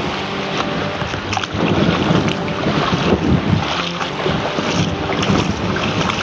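Wind rushing over the microphone while sea water washes and splashes over rocks in the shallows, with short knocks and splashes scattered through it and louder surges from about a second and a half in.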